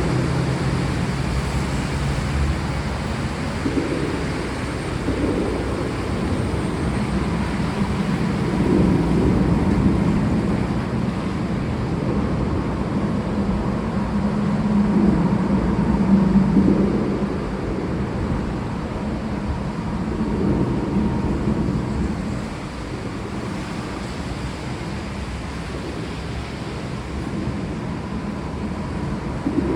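Steady rain falling, an even hiss, with low rumbles of distant thunder that swell and fade several times.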